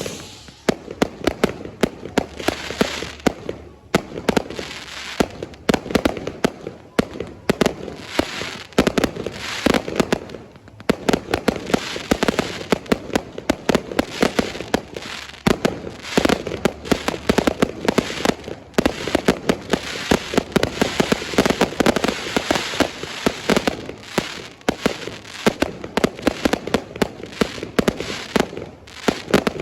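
Fireworks going off in a dense, unbroken run of rapid cracks and bangs.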